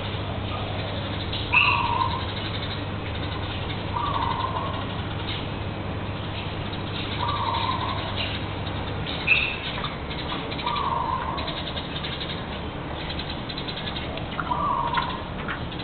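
A bird calling outdoors: a short call repeated five times, about once every three seconds, over steady background noise.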